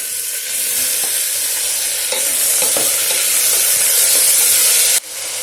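Onions and tomatoes sizzling as they are sautéed in hot oil in a pressure cooker, stirred with a spoon; the sizzle drops suddenly about five seconds in.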